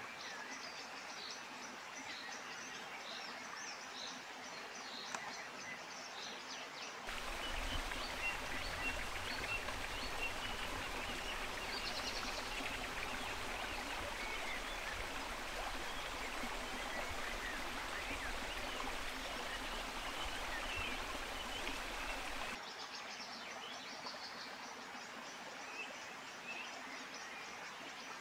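Outdoor nature ambience: a steady run of high, repeated chirps over a soft background hiss. About seven seconds in, it gives way to a louder, even rushing noise with a low rumble beneath it. The chirping returns about twenty-three seconds in.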